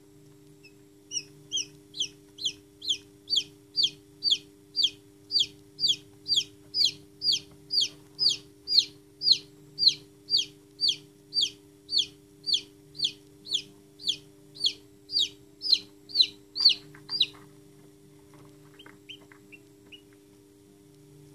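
Newly hatched chick peeping: a long, even run of loud, high, falling peeps, about two a second, which then stops, leaving a few faint peeps near the end. A steady low hum runs underneath.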